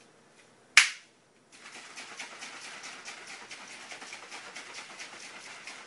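Plastic shaker bottle of drink mix: one sharp click as the lid is closed about a second in, then the liquid shaken hard in a rapid, even sloshing rhythm for about four seconds.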